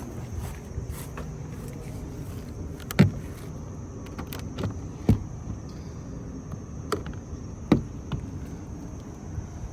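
A handful of sharp knocks or clicks, four of them louder than the rest, spread irregularly over a steady low hum.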